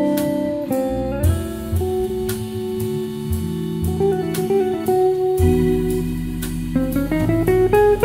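Jazz trio playing: archtop electric guitar picks a single-note line over long held Hammond organ chords, with drums and cymbals behind; the guitar breaks into a quicker run of notes near the end.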